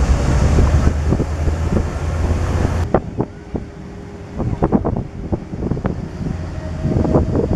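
Off-road jeep driving, its low rumble mixed with wind buffeting the microphone. About three seconds in the sound cuts abruptly to a quieter stretch of scattered knocks and clatter.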